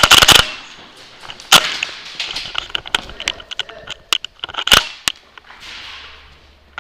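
Airsoft guns firing: a quick burst of sharp cracks at the start, then scattered single shots and clicks over the next few seconds.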